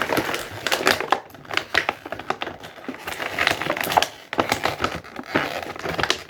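Plastic action-figure packaging crinkling and crackling in irregular bursts as it is handled and pulled apart to free the figure.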